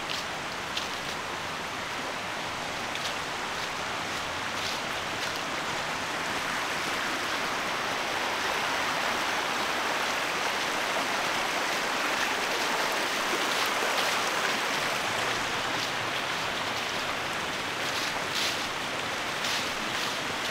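Steady rush of flowing stream water that swells toward the middle, with a few light crunches of footsteps on the leafy trail, mostly near the end.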